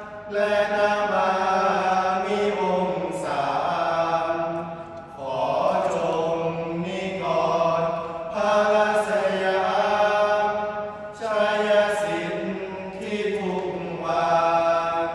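Group of young men chanting Thai Buddhist sarabhanya together, a melodic chant sung in long held phrases, with short breaks for breath about five seconds in and again near the end.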